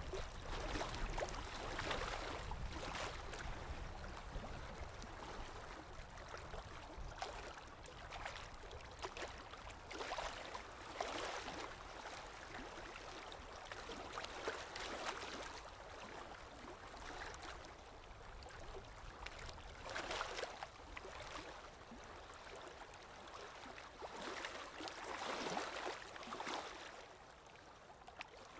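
Stream water flowing and gurgling, swelling louder every few seconds and then easing back.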